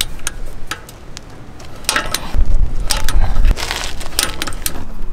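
Metal clicks and clinks of a wrench and socket working the lug bolts of a BMW M4's wheel. Wind buffets the microphone in a strong gust from about two to three and a half seconds in.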